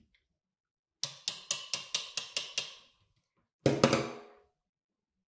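Metal electric hand-mixer beaters tapped against the edge of the mixing bowl, about seven quick ringing knocks at around four a second, to shake off cake batter. A louder metallic clank follows shortly after.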